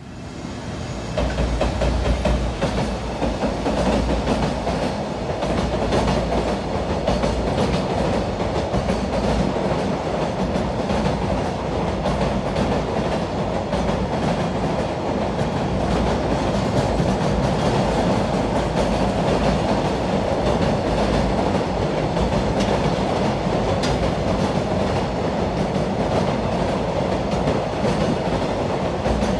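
Train running on rails, its wheels clicking over the rail joints. It swells in over the first two seconds and then stays loud and steady.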